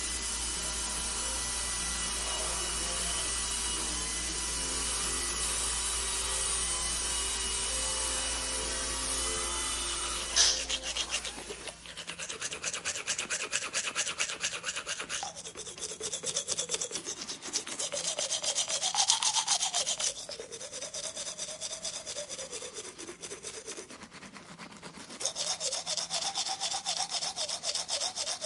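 A machine runs with a steady whirring hum and a low drone, then cuts off with a click about ten seconds in. After that come quick, rhythmic scraping strokes in bursts of several seconds.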